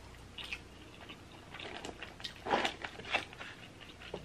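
Close-miked chewing of a breaded fried chicken tender: irregular wet mouth clicks, smacks and light crunches, with the loudest cluster a little past halfway.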